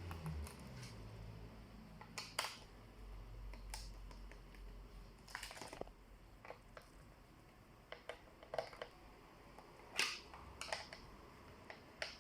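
Scattered light clicks and taps of small tools and plastic parts being handled while taking apart a laptop, over a faint low hum.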